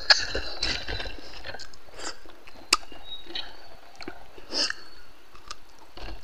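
Close-up mouth sounds of a man chewing a mouthful of rice and pork curry, with wet smacks and several sharp clicks, the sharpest about two and a half seconds in.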